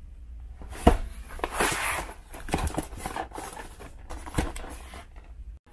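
Cardboard retail box being handled and opened on a table: a sharp knock about a second in, then scraping and rustling of cardboard with scattered clicks.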